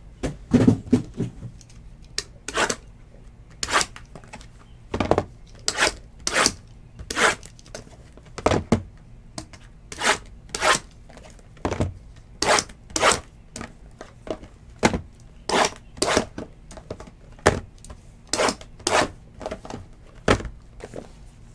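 Sealed trading-card boxes being handled on a table: a string of short crinkles, scrapes and light knocks of cardboard and plastic wrap, about one or two a second.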